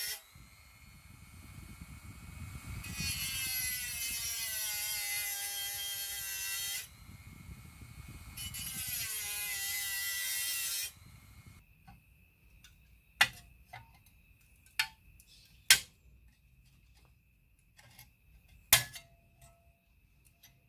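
Dremel rotary tool with a small grinding wheel cutting thick-gauge steel sheet: a high whine in several spells, its pitch sagging as the wheel bites, stopping about eleven seconds in. A few sharp metal taps follow.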